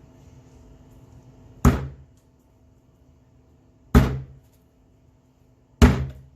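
Hammer striking three sharp blows about two seconds apart, driving a half-inch axle hat push nut onto the end of a wooden dowel rod.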